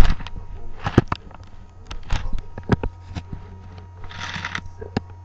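A pet parrot's short, breathy cough about four seconds in, among scattered light clicks and taps, the loudest a sharp click at the start.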